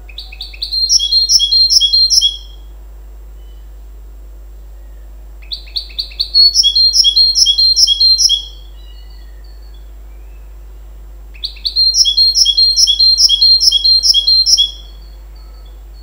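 Goldfinch × canary hybrid (mule) singing three high, bright song phrases a few seconds apart. Each opens with a few quick separate notes and runs into about two to three seconds of fast repeated notes.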